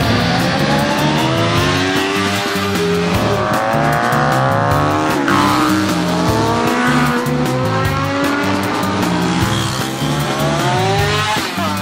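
Racing motorcycles accelerating past, their engines climbing in pitch through the gears several times and dropping as they go by, over background music.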